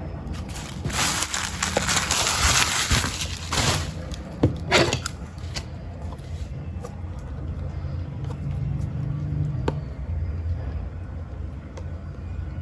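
Packaging being torn and rustled open: a loud tearing rustle lasting about three seconds, then two short rips, then a few faint clicks over a low hum.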